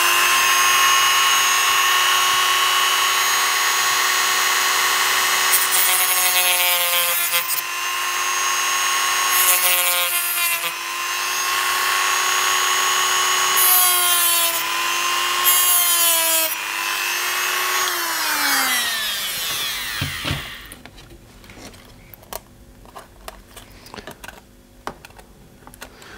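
Dremel rotary tool with a cutoff disc running at a steady high whine, with several short grinding bouts as the disc cuts a small notch into the plastic roadbed of an N scale track section. About 18 seconds in the motor is switched off and its pitch falls away as it spins down, followed by faint handling of the track piece.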